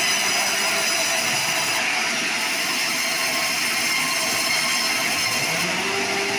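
Large band-saw mill running, its vertical blade ripping lengthwise through a log as the carriage feeds it past: a steady, dense sawing noise.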